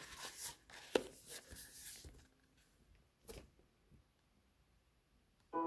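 Faint rustling of book pages being handled and turned, with light clicks, for about two seconds, then one more click a little past the middle. Piano music comes in near the end.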